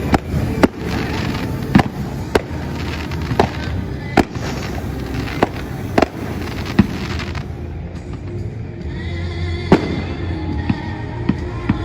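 Fireworks display: aerial shells bursting in a string of sharp bangs about every half second to second, with a lull in the middle, over music playing underneath.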